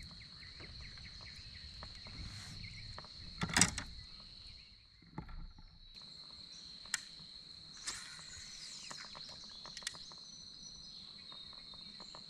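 A steady high-pitched insect drone, like crickets, with a few sharp knocks and clicks, the loudest about three and a half seconds in.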